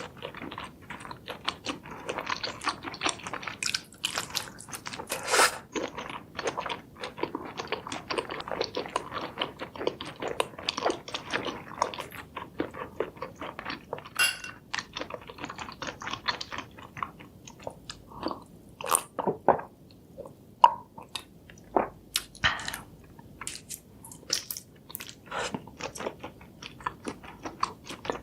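Close-miked chewing and biting of crisp food, with a steady run of crunches and crackles that thins to separate crunches over the last third.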